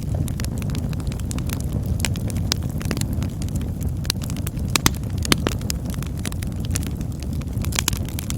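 Campfire burning, a steady low rumble of flame with frequent irregular crackles and sharp pops, the loudest pops a little before and after five seconds in.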